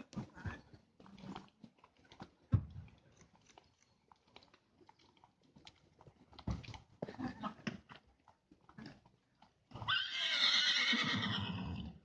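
A horse whinnying: one long call of about two seconds near the end, the loudest sound. Before it, scattered faint knocks and rustles.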